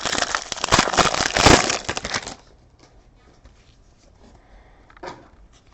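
Trading-card pack wrapper being torn open and crumpled, a dense crinkling full of small crackles that stops a little over two seconds in. A faint brief rustle follows about five seconds in.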